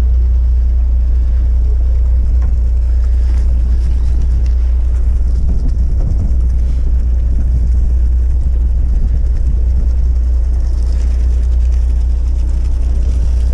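Fishing boat's engine running with a steady low drone as the boat manoeuvres, with water and wind noise above it.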